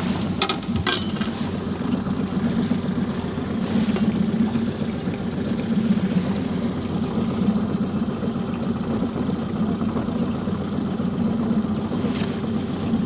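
Boat motor running steadily at slow trolling speed, a low even hum. Two short sharp clicks sound a little under a second in.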